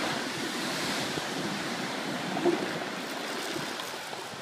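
Ocean surf breaking and washing up a sandy beach, a steady rushing wash, with one brief louder note about halfway through.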